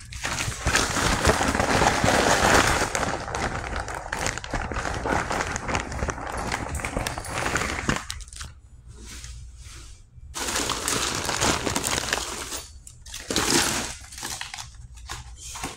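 Plastic bags crinkling and rustling as they are handled right against the microphone, in long stretches broken by a couple of short pauses.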